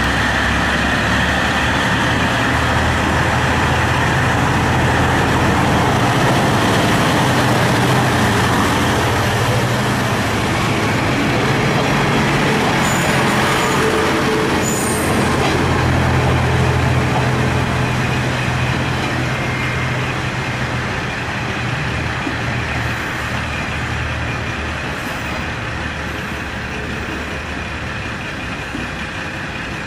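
A KiHa 40-series diesel railcar's engine running under power as it pulls away from the platform. The engine note is strongest through the first half as the car passes, then fades steadily as it moves off.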